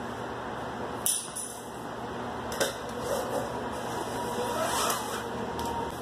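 Steady background hum, with a sharp click about a second in and a knock about two and a half seconds in.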